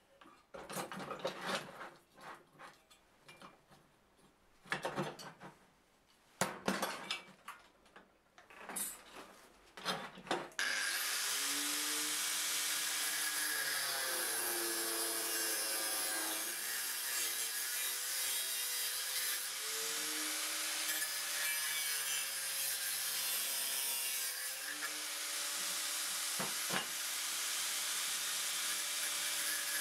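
Irregular scraping strokes of a hand tool on metal, then an angle grinder starts suddenly about a third of the way in and grinds steel steadily, its pitch dipping and recovering several times as the disc is pressed into the work.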